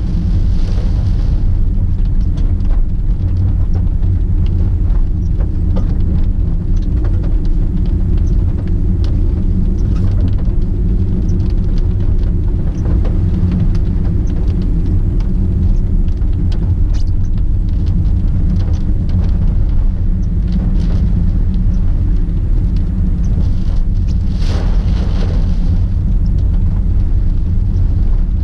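First-generation Honda Freed driving through typhoon rain, heard from inside the car: a steady low rumble of road and engine, with scattered sharp ticks and a brief rushing hiss about 25 seconds in.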